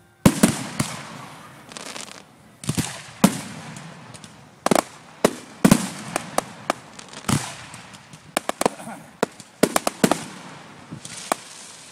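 Aerial fireworks shells bursting in a rapid, irregular barrage of sharp bangs with crackling between them, the first loud bang coming just after the start and a tight cluster of reports around the ninth and tenth seconds.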